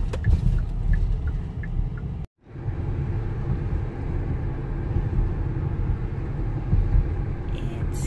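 Steady low rumble of a car's engine and tyres on the road, heard from inside the cabin while driving. The sound drops out completely for a moment a little over two seconds in.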